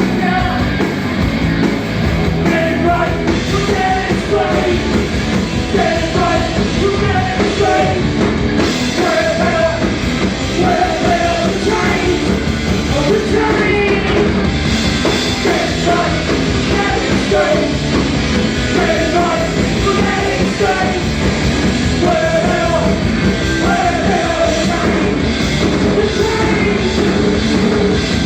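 Rock band playing a song live, with a singer's voice over the band.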